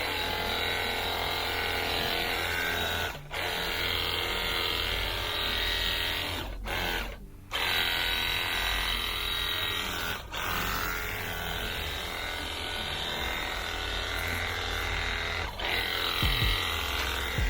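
Cordless pressure washer's pump motor buzzing as it sprays, stopping briefly a few times as the trigger is released.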